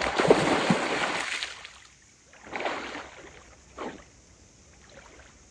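Water splashing and washing in irregular surges, the loudest lasting about two seconds at the start, then a shorter surge and a brief splash.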